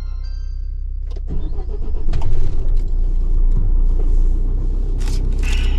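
Motorhome engine heard from inside the cab: idling at first, then pulling away, with the engine and road rumble growing louder from about a second and a half in. A few faint short electronic tones sound in the first second.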